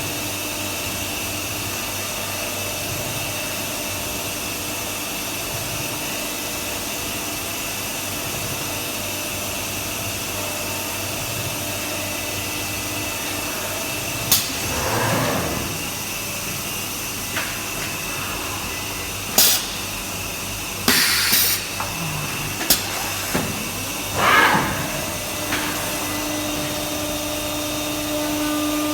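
CNC router milling maple: a steady machine noise with several high, steady tones from the spindle and its extraction. In the second half there are several sharp clicks and two short swishes.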